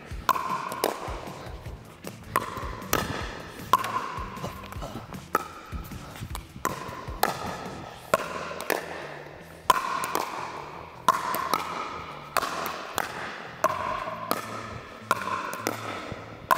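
Pickleball paddles striking a hollow plastic pickleball in a fast volley rally: sharp pops a little more than once a second, each ringing briefly around the indoor court.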